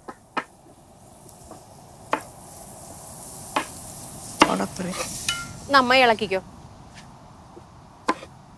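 Sliced onions sizzling in oil in a metal pan, stirred and scraped with a wooden spatula, with the sizzle building through the middle. Sharp knocks of a knife chopping on a wooden board come every second or two. A short wavering voice-like call sounds about six seconds in.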